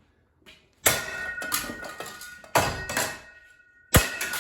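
A baseball bat hitting the plastic blades of a ceiling fan three times, about a second and a half apart. Each hit is a sharp crack followed by a brief clatter as the blades break.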